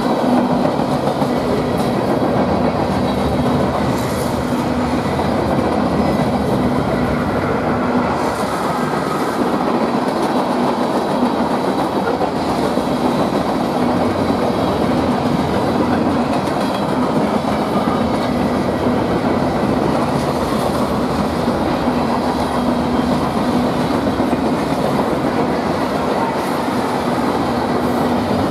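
Freight train's tank cars and covered hoppers rolling past: a steady rumble and clatter of steel wheels on the rails, with a steady low hum under it.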